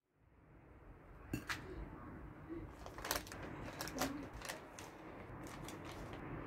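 Steady low background noise fading in, with several sharp clicks and taps scattered through it.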